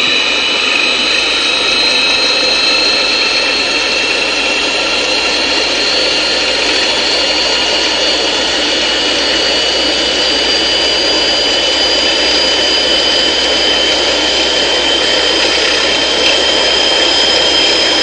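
A motor spinning up a heavy, 40-pound gyroscope wheel on its ball-bearing shaft: a steady mechanical whine that climbs slowly in pitch as the wheel gains speed toward 2,500 revs a minute.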